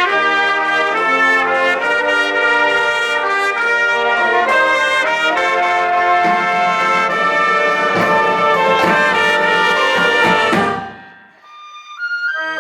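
Marching band brass (trumpets and trombones) playing a ballad, with drums joining about halfway. The music cuts off sharply near the end, and after a short pause the brass starts up again.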